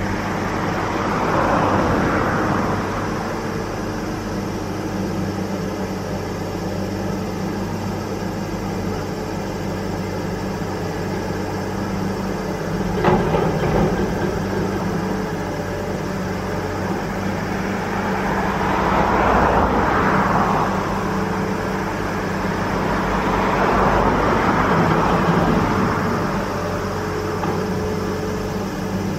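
Steady low drone of heavy diesel machinery on a river work boat. Three times, a slower swell of road traffic passes over it. A single sharp knock comes about halfway through.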